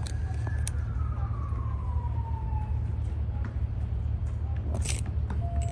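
Police siren winding down: one long wail falling steadily in pitch over the first few seconds, above a steady low rumble. A brief sharp knock about five seconds in.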